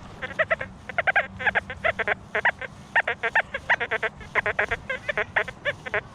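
XP Deus II metal detector sounding rapid short beeps, several a second in clusters with varying pitch, as the coil sweeps over ground full of iron trash.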